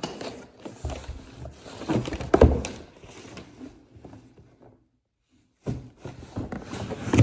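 Handling noise from a package being opened: irregular knocks and rustling, with one louder thump about two and a half seconds in. The sound cuts out completely for about a second near the middle.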